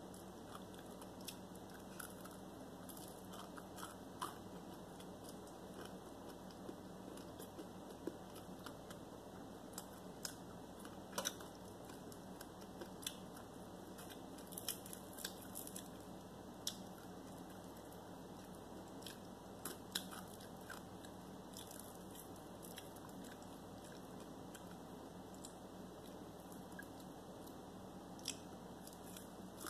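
A person eating fried chicken by hand: quiet chewing with scattered small crunches and sharp clicks at irregular moments, over a faint steady hum.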